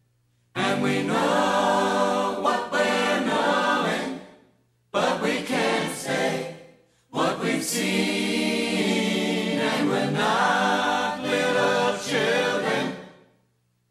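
Background music of a choir singing, in three phrases that each fade away, with short silences between them.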